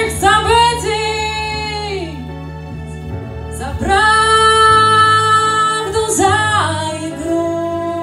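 Female singer singing a Russian romance through a microphone and PA speakers, holding long notes of the melody, over a soft sustained accompaniment.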